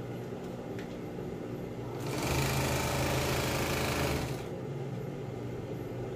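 Industrial lockstitch sewing machine stitching for about two seconds, about two seconds in, as binding is sewn onto blue vinyl tarpaulin. A low steady hum sounds before and after the stitching.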